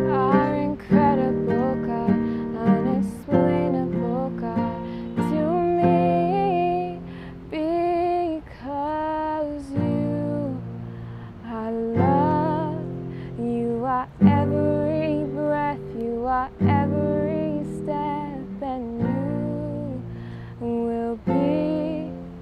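A woman singing a slow song with held, wavering notes, accompanying herself on a strummed nylon-string classical guitar.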